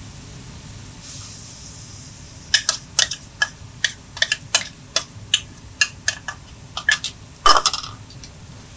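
Black plastic spatula knocking and scraping against a non-stick frying pan while cabbage and ground meat are stir-fried: a run of sharp clicks, about two a second, starting a couple of seconds in, the loudest knock near the end, over a faint hiss of frying.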